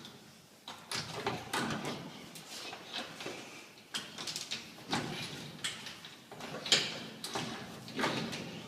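A metal letterbox bypass tool being fed through a door's letterbox, clicking, scraping and rattling irregularly against the letterbox and the door.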